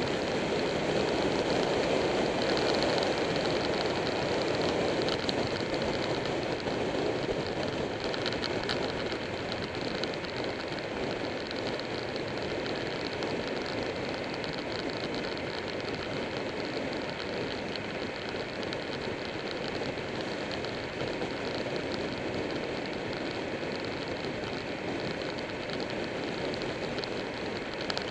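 Wind and road noise rushing past a motorcycle-mounted camera's microphone at riding speed, a steady hiss that eases off slightly after the first several seconds.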